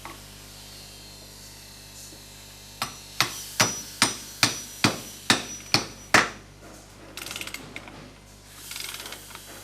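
Hammer striking a metal masonry fixing: nine quick blows, about two and a half a second, each with a short metallic ring. Two brief spells of rasping, ratchet-like sound follow near the end.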